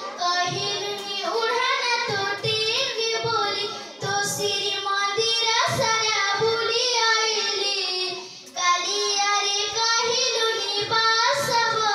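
A young girl singing an Odia song solo into a handheld microphone, with no accompaniment heard. Her line breaks off briefly for breath twice, about four and eight and a half seconds in.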